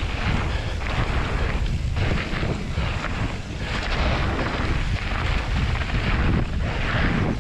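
Wind buffeting the microphone of a bike-mounted action camera during a fast mountain-bike descent, a heavy rumble mixed with the noise of tyres rolling over a dry dirt trail. The hiss rises and falls in surges every second or two.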